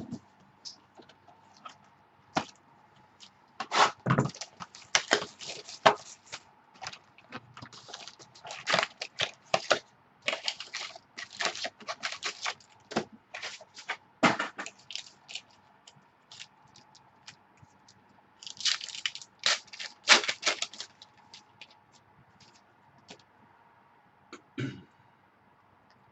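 Trading-card box and pack packaging being handled and opened: scattered sharp clicks and short bursts of crackling and tearing, bunched into several busy spells, the busiest near the start and around two-thirds of the way through.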